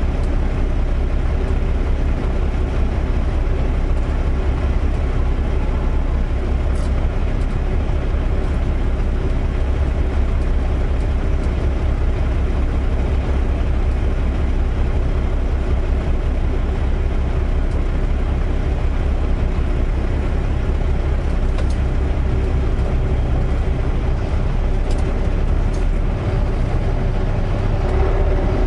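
Semi-truck engine and road noise heard from inside the cab while driving: a steady low rumble with a constant hum, a few faint ticks, and the low rumble shifting near the end.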